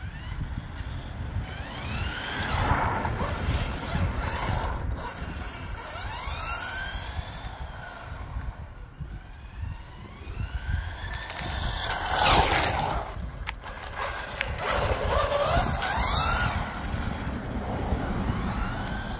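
1/10-scale RC touring car with a 550-size 13-turn brushed motor, its motor and gears whining up and down in pitch, again and again, as it accelerates and slows on test runs, over a steady low rumble.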